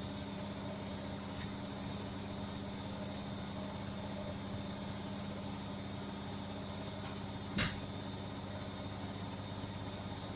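Beko washing machine running its spin-and-drain cycle at 1200 rpm, a steady mechanical hum. One short knock comes about seven and a half seconds in.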